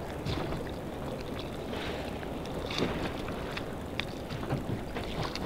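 Wind buffeting the microphone over choppy sea water lapping around a small boat, with a few light slaps of water.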